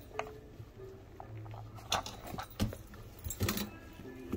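Dog puzzle toy's sliding pieces clicking and knocking as a small dog noses at it to get the hidden treats: a few sharp taps about two seconds in and a short cluster near the end.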